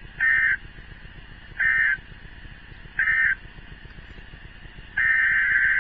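Emergency Alert System SAME digital data bursts: three short bursts about 1.4 s apart, the end-of-message code that closes a severe thunderstorm warning. About five seconds in, a longer burst of the same tone begins, the header of the next warning.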